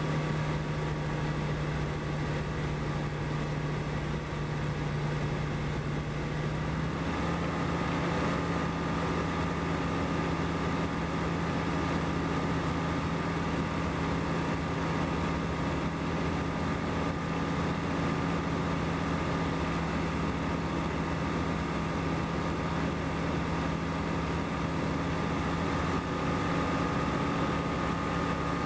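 Light aircraft's engine and propeller running steadily in flight, over an even hiss. The note steps up slightly about seven seconds in and then holds, as the engine speeds up a little.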